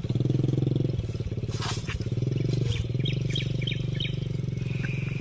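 A small engine running steadily with a fast, even pulse. A few short high chirps sound over it midway.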